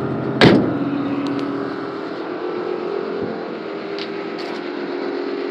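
One loud bang about half a second in, then the truck's twin air-suspension compressors running with a steady hum.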